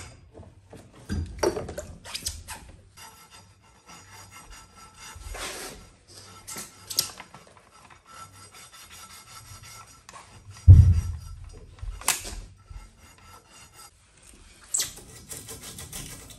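Gloved hands rubbing and scraping at a water pipe fitting in irregular strokes, with one heavy thump a little past the middle.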